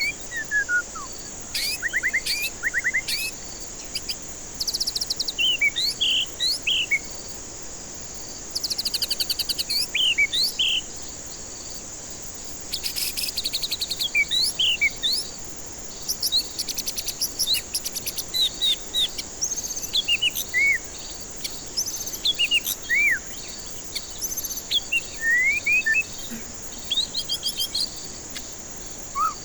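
White-rumped shama (murai batu) singing in repeated bursts of loud whistled notes that slide up and down, broken by fast rattling chatter phrases. A steady high insect-like hiss runs underneath.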